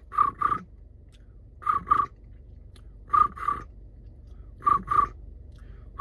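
A person's mouth imitating a cricket: a whistle with a rolled R trilled through it, in pairs of short chirps, one, two, pause. Four pairs come about a second and a half apart.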